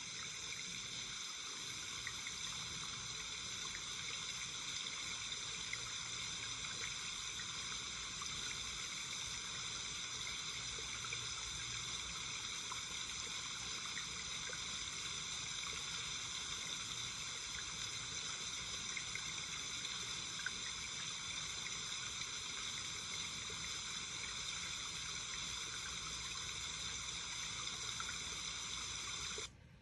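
Waterfall pouring off a rock bluff into a pool: a steady, even rush and splash of falling water that stops abruptly just before the end.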